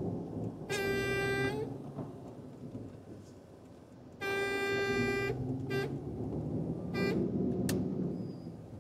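A truck horn sounds four times over the low rumble of the timber truck's engine and tyres inside the cab: a long honk of about a second near the start, another about four seconds in, then two short toots.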